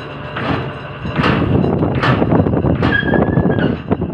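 Motor-driven ship's gangway being lowered over a tanker's side: sharp steel clanks, then a continuous metallic rattling clatter, with a brief squeal about three seconds in.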